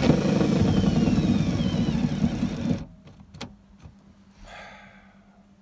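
Cordless drill spinning a hex-head self-drilling, self-tapping screw through the sheet metal of a classic Mini's cross member and floor: the motor runs with the point cutting its own hole, a thin squeal falling in pitch, for nearly three seconds, then stops suddenly as the screw pulls the panels tight, followed by a single click.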